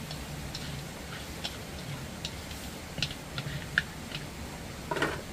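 Irregular light clicks and taps, several seconds apart at first and closer together near the end, over a steady low hum.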